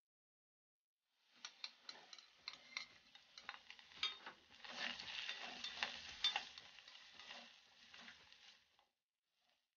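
Wooden spatula stirring and scraping diced vegetables frying in oil in a metal kazan: a sizzle under a run of scrapes and taps on the pot, starting about a second in and stopping shortly before the end.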